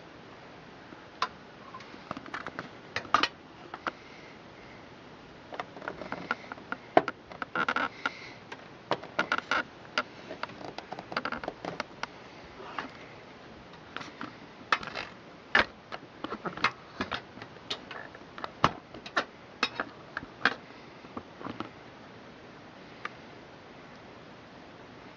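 Irregular clicks, taps and light rustling of a drive being fitted into a Corsair 780T PC case, dying down near the end.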